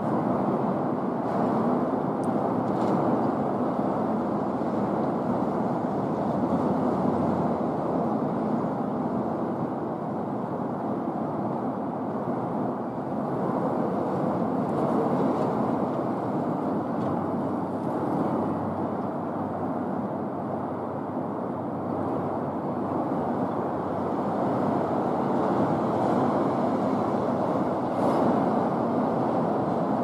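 Steady outdoor background rumble with no distinct events, as from distant city traffic.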